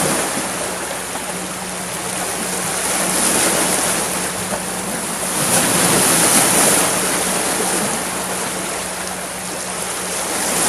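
Sea surf washing over a rocky shore, the rush swelling and easing every few seconds.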